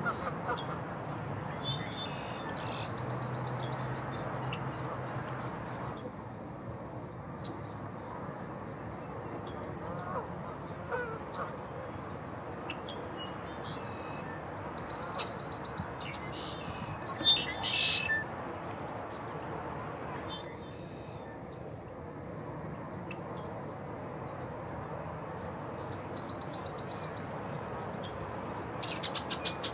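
Red-winged blackbirds and geese calling in the background: repeated short chirps and trills every few seconds, with one louder burst of calls about two-thirds of the way through.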